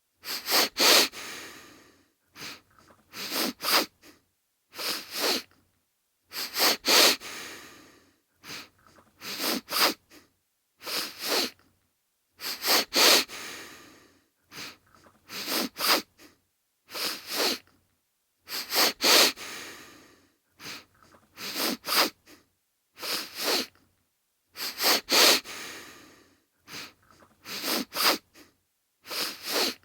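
A man sniffling repeatedly: quick, sharp inhales through the nose in clusters of two or three, a new cluster about every two seconds, with silence between.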